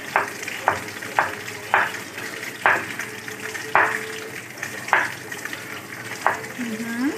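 A kitchen knife chops onion on a wooden cutting board: sharp knocks of the blade hitting the board at an uneven pace, roughly one a second.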